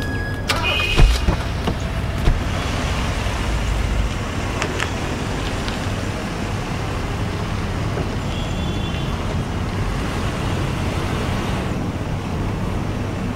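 BMW X1 car: two thumps of car doors shutting about one and two seconds in, then the engine running steadily as the car drives off.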